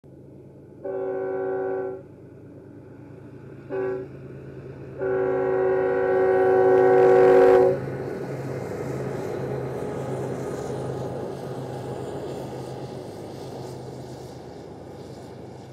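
Union Pacific GE diesel locomotive air horn sounding a multi-note chord three times: long, short, then a long, loudest blast that cuts off about eight seconds in. After it comes the locomotives' steady engine drone and the rumble of loaded coal hopper cars rolling slowly past, working up a 1% grade and gradually fading.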